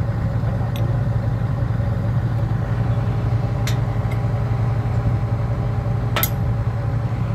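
Hydraulic excavator's diesel engine idling steadily. A few light metallic clinks of a wrench on the boom's hydraulic line fitting, the sharpest about six seconds in.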